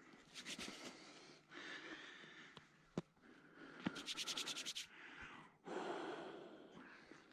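Hands rubbed briskly together, rapid rasping strokes in two spells of about a second each. Breaths and rustling come in between, along with a couple of sharp clicks.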